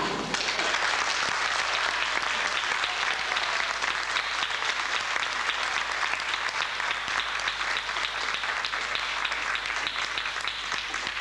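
Audience applauding: many hands clapping together, holding steady throughout.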